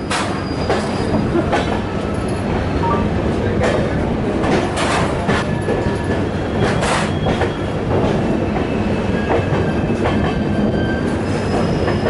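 Passenger coach running over the track, heard at its open door: a steady wheel rumble with irregular sharp clacks as the wheels cross rail joints and the points where the train diverts onto another line, and a few faint thin wheel squeals.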